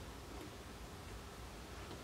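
Faint ticks of a metal helping-hands soldering stand being adjusted by hand, a light one about half a second in and another near the end, over quiet room tone.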